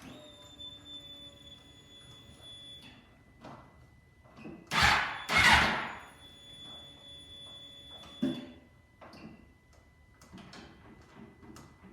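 2001 Suzuki GSX-R600's electric fuel pump priming: a steady whine for about three seconds. Two loud bursts of noise come about five seconds in, then the pump whines again for about two seconds and ends with a thump.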